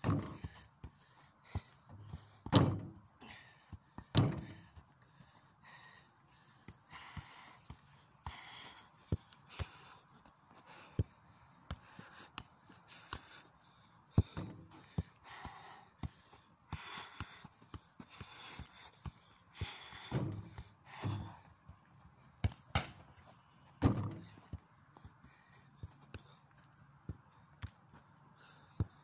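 Football being kicked and touched: irregular sharp thuds and taps, a few of them much louder than the rest.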